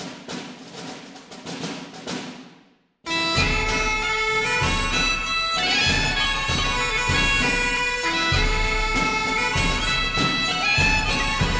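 Background music. A drum-heavy piece fades out, and after a brief silence about three seconds in, a tune on a piped wind instrument with drum beats starts and runs on.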